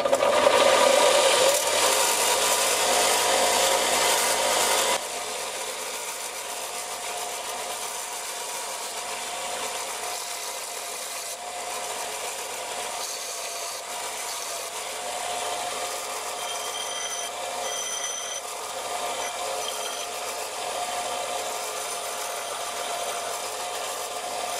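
Parkside PSBS 240 C2 combined bench grinder and belt sander switched on and running on its first test, with a steel bar ground against the sanding belt and then the grinding wheel. It is much louder for about the first five seconds, then settles to a steady running whine with grinding noise, and a few short high squeaks come around the middle.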